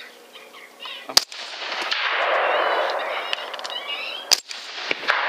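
Two rifle shots about three seconds apart, fired at coyotes at night. The first, about a second in, is the loudest, and a loud rushing hiss follows it.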